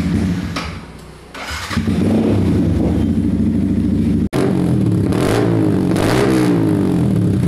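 Motorcycle engine with a modified aftermarket exhaust running and being revved: it picks up about two seconds in, then the revs climb and fall a few times in the second half.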